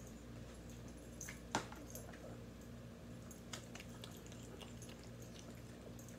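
Pugs eating ham from a hand: a scatter of small wet chewing and smacking clicks, the sharpest about one and a half seconds in.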